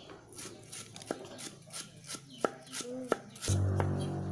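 Knife slicing lemongrass on a wooden chopping board: quick, regular light taps, about three a second, with a few sharper knocks. About three and a half seconds in, a steady low hum starts and becomes the loudest sound.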